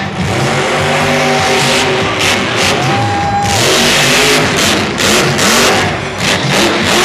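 Loud monster truck engines revving over and over, their pitch rising and falling.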